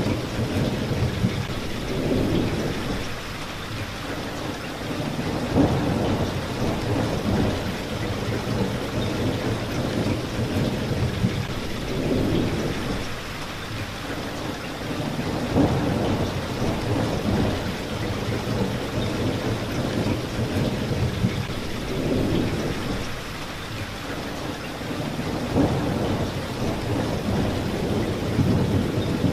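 Steady rain falling on a street, with low rolling rumbles of thunder that swell and fade every few seconds.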